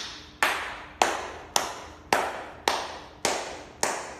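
Hand claps at a steady pace, about two a second, each with a short ring-out in the room, made to trigger the LED par light's sound-activated mode.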